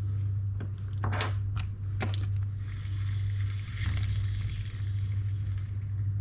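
Handling of a serviced Shimano Stella FE spinning reel: a handful of small metallic clicks and taps, then about three seconds of soft whirring noise, over a steady low hum.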